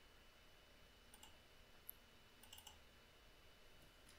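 Faint computer mouse clicks against near silence: a few single clicks, then a quick run of clicks about two and a half seconds in.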